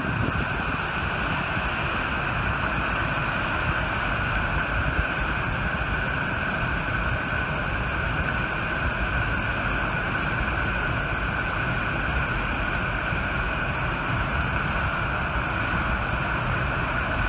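Steady rush of water from the Button Rock Dam outlet: a high-pressure jet shooting from the outlet works and crashing into the St. Vrain River, with the river's rapids churning below.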